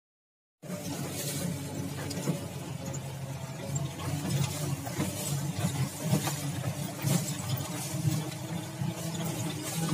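Off-road jeep engine running as the vehicle drives, heard from inside the cabin, with frequent light rattles and knocks. It starts about half a second in, after a short silence.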